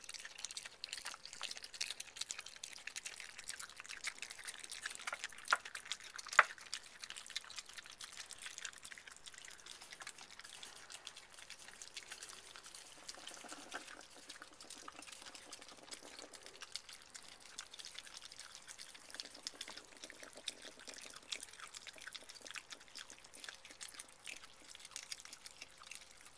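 Opossums chewing and smacking on moist chopped fruit and vegetables close to the microphone: a steady run of small wet clicks and crackles. Two sharper clicks stand out about five and six seconds in.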